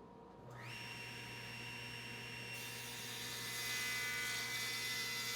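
Electric power tool motor switched on: a quick rising whine as it spins up, then running steadily with a hum.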